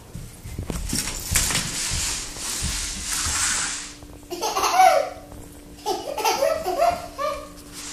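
Toddler laughing in two short bouts of giggles, about halfway through and again near the end, after a few seconds of an even hissing noise.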